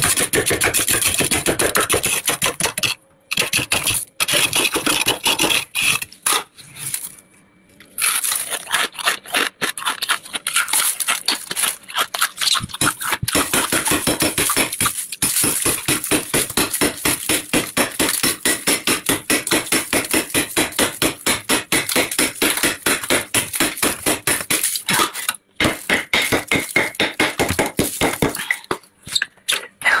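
Metal spoon scraping thick frost from the inside of a freezer in rapid repeated strokes, with a few short pauses.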